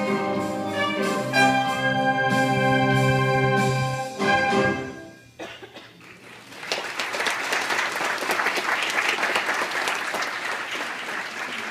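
A church brass-and-wind ensemble plays its closing sustained chords, then a short final note, and stops about five seconds in. The congregation then applauds for several seconds, the clapping thinning out near the end.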